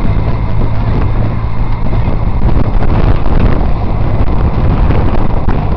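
Loud, steady wind rumble buffeting the microphone of a camera carried on a moving bicycle riding in a pack of cyclists.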